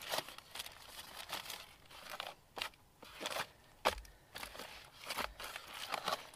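Aluminium foil crinkling in short, irregular crackles as hands knead sticky dough in a foil bowl.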